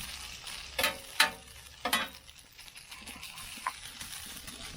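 Shredded potatoes sizzling in hot oil on a Blackstone flat-top griddle as they are spread into a single layer, with three sharp clacks of a spatula against the steel griddle in the first two seconds.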